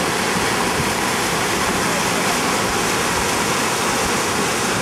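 Muddy flash-flood water rushing across a desert wash, a loud, steady rush of churning water.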